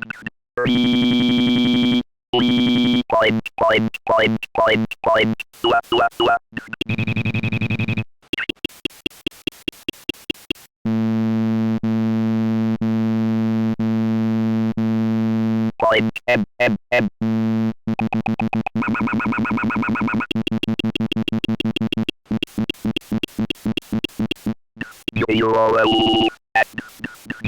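STSpeech text-to-speech program glitching: a string of buzzy electronic tones and sounds that start and stop abruptly, with rising pitch glides and rapid clicking pulse trains. A single steady electronic buzz holds for about five seconds in the middle.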